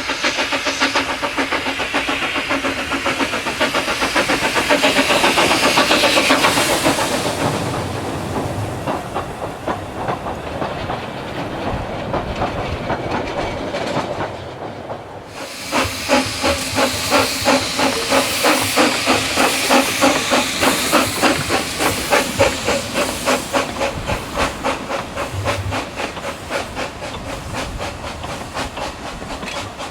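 Steam locomotive sound: hissing steam with exhaust beats that swell in the first few seconds, a brief drop around the middle, then a steady chuffing rhythm that eases off near the end.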